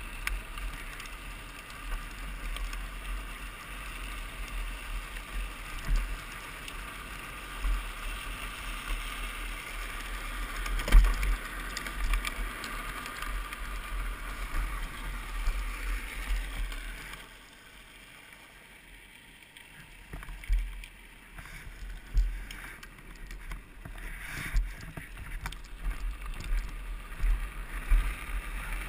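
Drift trike rolling and sliding downhill on asphalt: a steady rolling rumble from the hard plastic rear wheels, with wind buffeting the mounted microphone. A sharp knock about eleven seconds in, and a quieter stretch about two-thirds of the way through.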